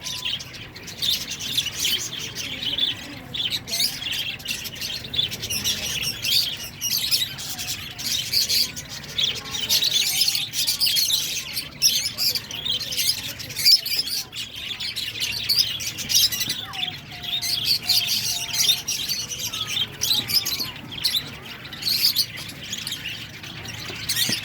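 A colony of budgerigars chirping and chattering together: a dense, unbroken mix of many high, quick chirps and warbles.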